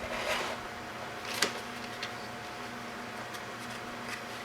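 Hand-work sounds of wire and tape being handled, with one sharp click about a second and a half in, over a steady faint hum.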